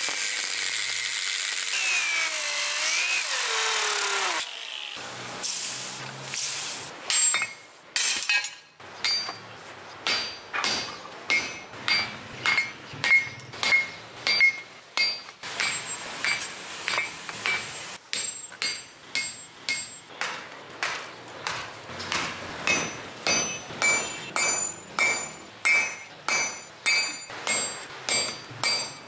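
Angle grinder cutting through a coil of rusted spring steel for about four seconds, its pitch sliding under load. Then a hand hammer strikes hot steel on an anvil over and over, each blow ringing, settling into about one and a half blows a second.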